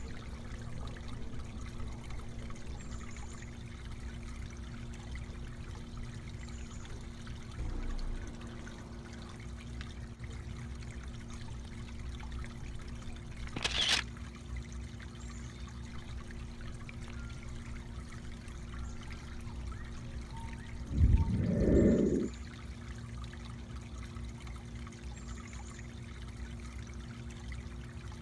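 Garden pond water feature trickling steadily. There is a single sharp click about halfway through and a brief louder low rumble about three-quarters of the way in.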